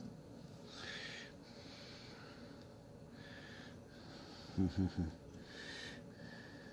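Slow, audible breathing through the nose, several breaths in a row. About four and a half seconds in come three quick low thumps, the loudest sounds.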